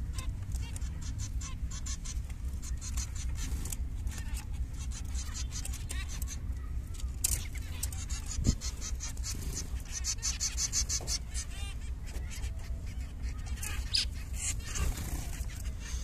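Zebra finches calling: many short, rapid calls from several birds, densest about ten seconds in, over a low steady rumble. A single sharp knock about eight and a half seconds in.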